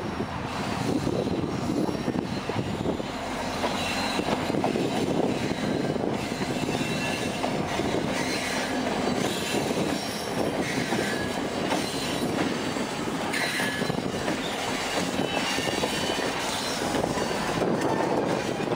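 Canadian Pacific freight train passing close by: diesel locomotives, then loaded covered hopper cars, rumbling and clattering over the rails. Short high-pitched wheel squeals come and go several times.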